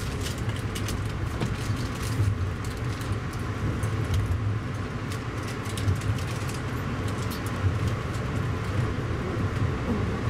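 Inside a moving passenger train: a steady low rumble of the running train with many small clicks and rattles over it.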